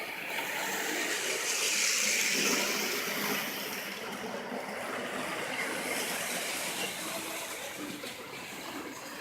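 HO scale model train running on the layout: a steady rushing noise that swells about two seconds in and then eases off.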